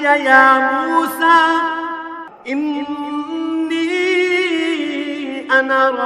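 Male Qur'an reciter chanting Arabic verses in the drawn-out, melodic tajweed style. A long held phrase eases off about two seconds in, and a new ornamented phrase begins just after.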